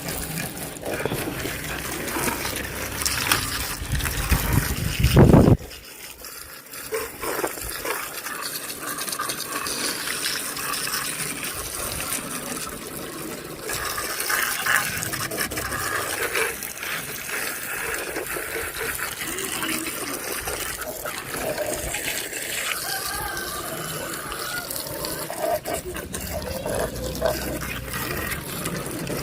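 Running water splashing over a muddy toy as it is washed clean. It is loud and full for the first five seconds or so, then drops suddenly to a quieter, steady splashing.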